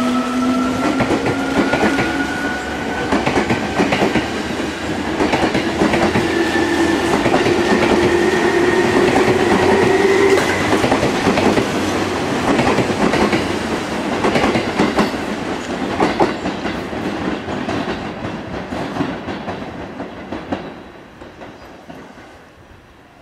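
Seibu 2000 series electric train departing and accelerating past: its field-chopper-controlled traction motors whine, rising in pitch for about the first ten seconds, over the clatter of wheels on rail joints. The sound fades near the end as the train draws away.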